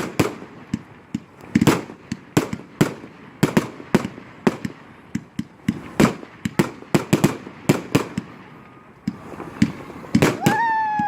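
Fireworks going off: a rapid, irregular string of sharp bangs and cracks. Near the end, a high whistle rises and then holds steady.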